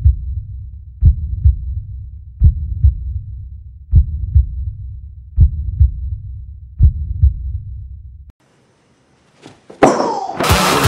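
Heartbeat sound effect: six low double thumps (lub-dub), about one every 1.4 seconds, over a low rumble, cutting off suddenly about eight seconds in. Near the end a whoosh leads into loud music.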